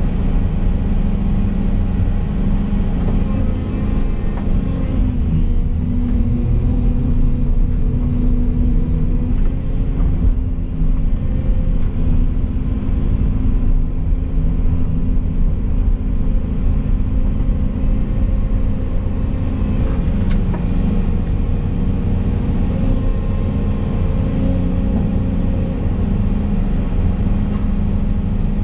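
Volvo EC220 excavator's diesel engine and hydraulics running steadily, heard from inside the operator's cab, while the machine slews and holds a load suspended from the boom. The drone rises and eases slightly with the load, with a faint click or two.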